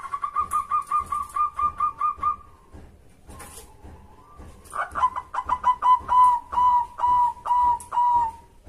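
Zebra dove (perkutut) song: a fast run of about a dozen short, high coos, then after a pause of a couple of seconds a second phrase that starts quick and slows into longer, drawn-out coos.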